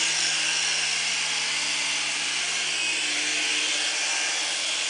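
Miniature remote-control helicopter flying: its small electric motors and spinning rotor blades give a steady high whine over a low hum as it hovers.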